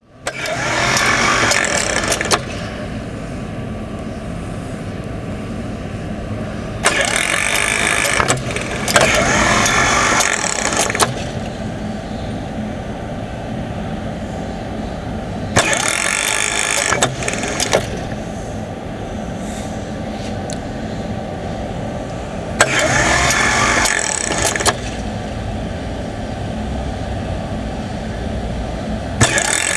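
Brushless DC gearmotor driving a toothed belt through a plastic pulley, running in repeated test cycles: it runs for two to four seconds about every seven seconds, its pitch rising as it speeds up and falling as it slows. A steady hum fills the gaps between runs.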